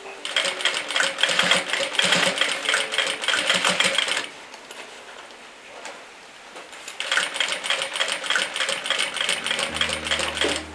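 Industrial straight-stitch sewing machine stitching bias binding onto a fabric pouch in two fast runs of about four seconds each, with a pause of about three seconds between them.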